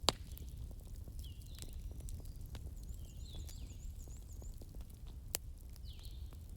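Crackling fire: a steady low rumble with many small crackles and two sharp pops, one just after the start and one about five seconds in. Short high falling chirps sound over it now and then.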